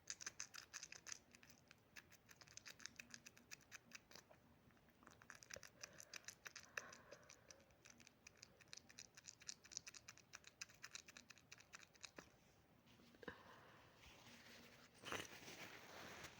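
Faint rapid clicks, several a second, in runs with a brief pause, stopping a little after the middle; a louder rustling sets in near the end.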